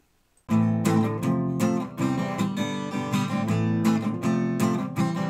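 Short intro jingle of strummed acoustic guitar chords, starting about half a second in with a steady run of strokes and cutting off abruptly at the end.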